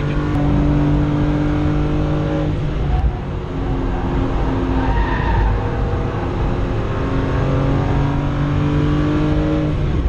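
BMW 325 engine heard from inside the car on track, running at steady revs under load. It eases off about three seconds in, then pulls again.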